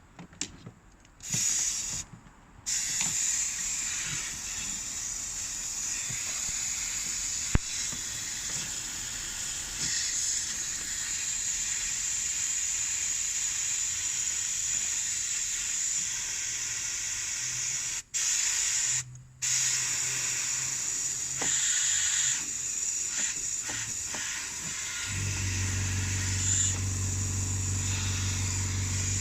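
Pressurised spray of cleaner hissing steadily into a car's air-conditioning system, stopping and starting a few times. A low steady hum joins near the end.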